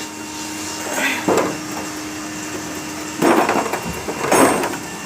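Metal engine parts and hand tools being handled: three short clattering scrapes and knocks, about a second in, then a little after three seconds and again just after four seconds.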